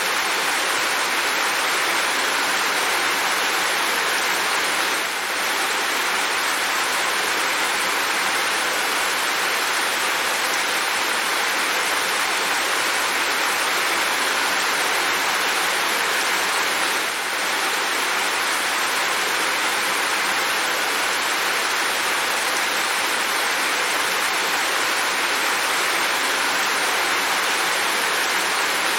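Steady heavy rain: a dense, even hiss with no single drops standing out, dipping slightly twice for a moment.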